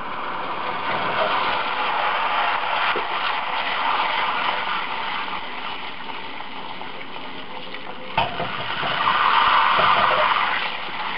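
Garlic butter and lemon juice sizzling and bubbling in a stainless saucepan, a steady hiss that grows louder near the end. A single sharp knock comes about eight seconds in.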